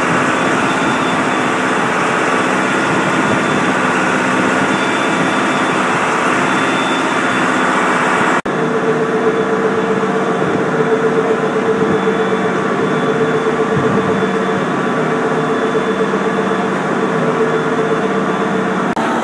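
Vertical-auger feed mixer wagon running, with a steady mechanical drone from its drive and the auger churning chopped forage. About eight seconds in, the sound breaks off for an instant and resumes with a steady mid-pitched hum over it.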